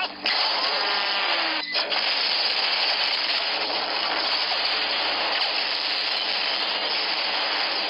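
Movie sound effects of a destruction scene: a dense, continuous roar of explosions and crashing debris, cutting out briefly twice in the first two seconds.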